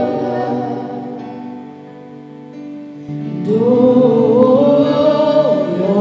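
Worship band playing a slow gospel song: held chords fade down, then about three and a half seconds in a woman's voice sings a melody over the band.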